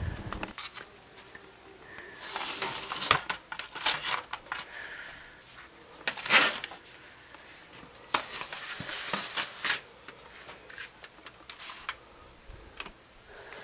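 Disposable aluminium grill trays crinkling and clattering as they are handled and set in place on the grill, in irregular short bursts of rustling and clicks.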